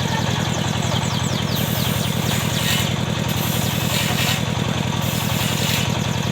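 Engine of a powered wood saw running steadily, with a hissing swell in the upper range about every second and a half.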